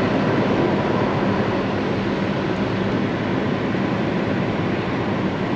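Car driving along a road at speed, heard from inside the cabin: a steady rush of tyre and wind noise with a faint low hum.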